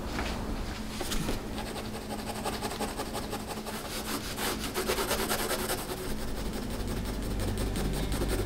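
Graphite pencil sketching on paper, the lead rubbing across the page in rapid strokes.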